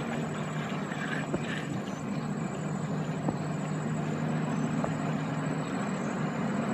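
Boat's Tianli 1130 single-cylinder diesel engine running steadily with an even low drone.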